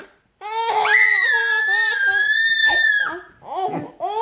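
A baby's long, high-pitched squeal held at an even pitch for a couple of seconds, breaking into a few short squeaky vocal sounds near the end.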